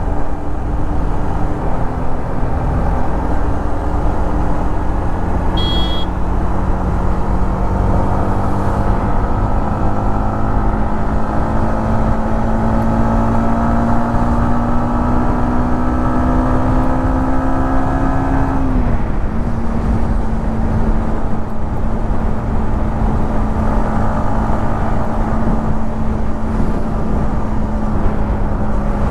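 Yamaha MT-15's single-cylinder engine and exhaust running on the road, its pitch climbing slowly and steadily for most of the stretch, then dipping briefly and holding level. A steady low rumble runs underneath, and a short high-pitched beep sounds about six seconds in.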